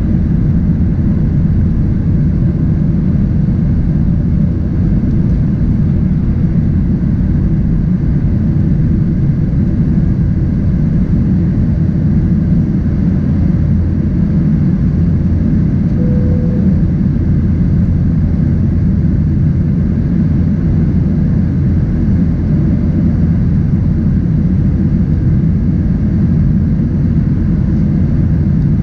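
Steady low rumble of a Boeing 737-800's CFM56-7B turbofan engines and airflow, heard from inside the passenger cabin.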